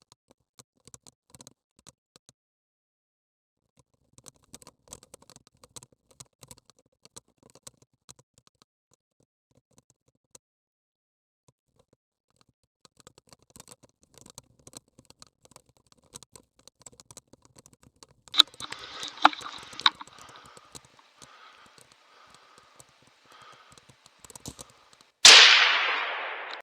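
A hunting rifle shot near the end: one loud, sudden crack whose echo dies away over about a second. A few seconds before it come several sharp cracks with rustling, and faint scattered clicks before that.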